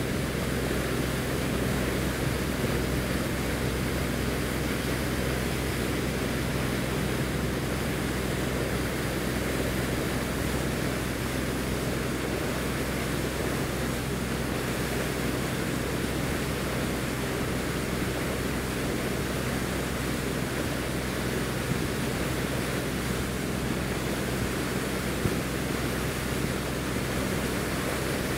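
Riverboat's engine droning steadily with a low hum, under a constant rush of wind and water past the moving hull.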